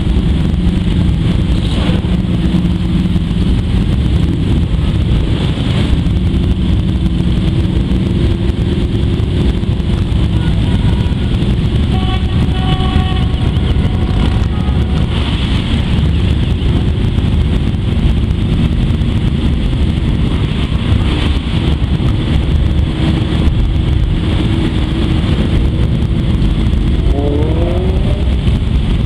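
Many Harley-Davidson V-twin motorcycle engines running together at low parade speed, a loud, continuous din. Near the end one engine revs up.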